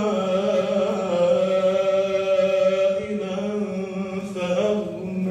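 A man's voice reciting the Quran in Arabic in a slow, melodic chant, holding long notes. This is the imam's recitation during congregational prayer.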